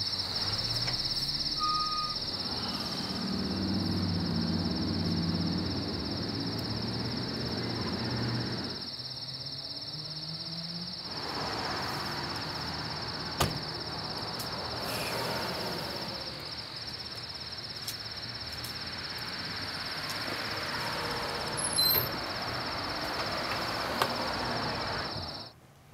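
Crickets chirring in a steady high trill, with a low drone in the first several seconds and a few sharp clicks and knocks. The insect sound cuts off suddenly near the end.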